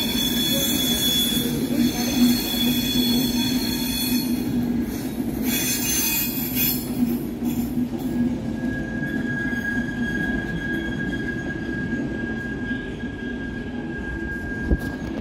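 Nightjet sleeper-train coaches rolling slowly through the station, their wheels squealing high-pitched over a low rumble. After about eight seconds the squeal settles into one steady tone.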